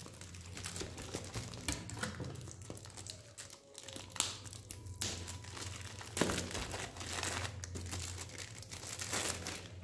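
Thin clear plastic bag crinkling and rustling as hands work boxed computer mice out of it: irregular crackles, a few sharper ones about four and six seconds in.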